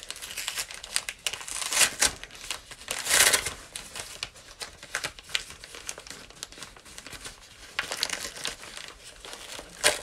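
A shipping package being torn open by hand: its wrapping crinkles and rips in irregular bursts, with a longer tear about three seconds in.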